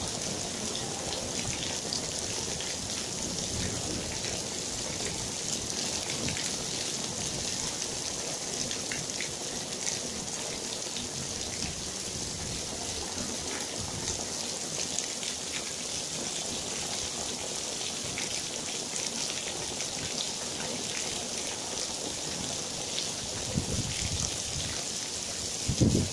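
Heavy rain pouring steadily onto a tiled patio and garden, with many small drop impacts in a constant hiss. A low rumble of thunder comes in near the end.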